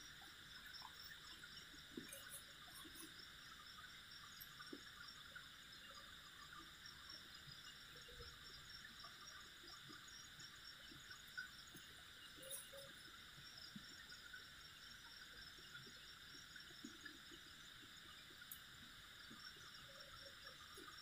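Near silence with a faint, steady chorus of night insects, broken by a few soft taps and scuffs.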